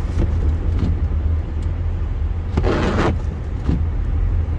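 Steady low rumble of a car driving on a snowy highway, heard from inside the cabin. About halfway through comes a short noisy rush lasting about half a second, with a few faint clicks scattered around it.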